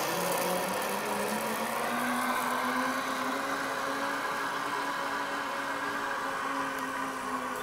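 Zip-line pulley trolley running along a steel cable: a steady whirring hum whose pitch rises a little in the first couple of seconds and then holds, easing off slightly near the end as the rider moves away.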